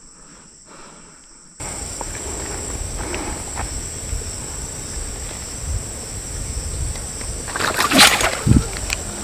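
Steady high insect drone over outdoor ambience, starting abruptly about a second and a half in. About eight seconds in, a loud brief rushing splash as a taut fishing line slices through the water surface when a carp is struck.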